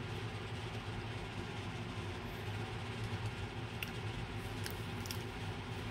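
A steady low background hum, with a few faint clicks in the second half.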